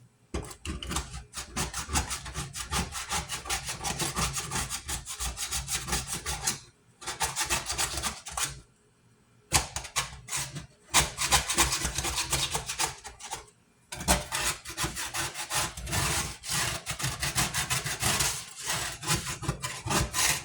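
Rapid back-and-forth scrubbing on an old stovetop, working loose caked-on grime softened with boiling water. It goes in long runs broken by three short pauses.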